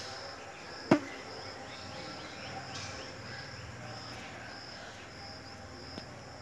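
Insects chirping in a steady high pulsing trill, about two pulses a second. A single sharp knock about a second in is the loudest sound, with a faint click near the end.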